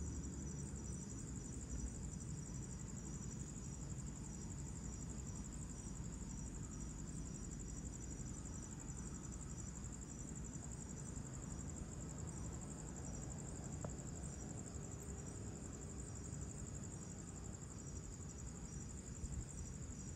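Chorus of crickets, a steady high-pitched trill that does not let up, over a low steady rumble.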